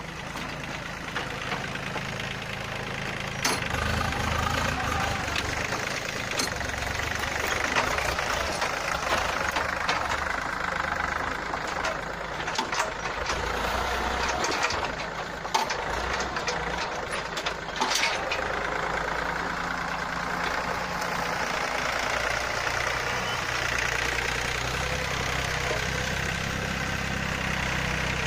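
Yanmar 1145 tractor's diesel engine running while pushing soil with its blade, picking up and getting louder about three and a half seconds in, with a few sharp clanks scattered through.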